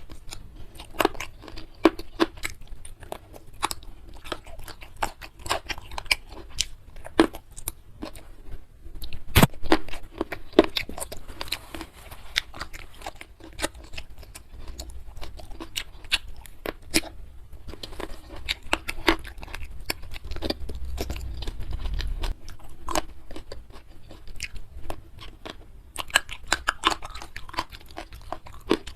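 Close-miked chewing and crunching of food, a continuous run of sharp crunches and mouth clicks.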